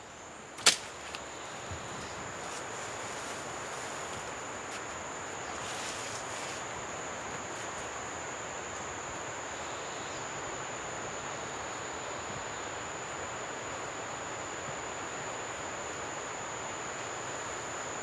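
A wooden hunting bow shot once, a single sharp snap of the string releasing the arrow about a second in. After it, a steady outdoor hiss with a thin, steady high-pitched whine.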